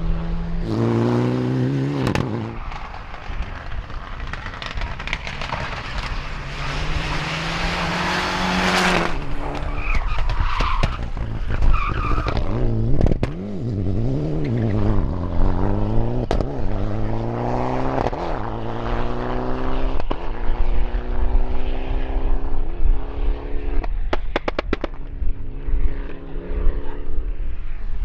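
Mitsubishi Mirage Proto rally car driven hard on gravel over several passes: the engine revs rise and drop repeatedly through gear changes, with gravel spraying from the tyres. Sharp exhaust pops and crackles come on lift-off, a quick run of them near the end.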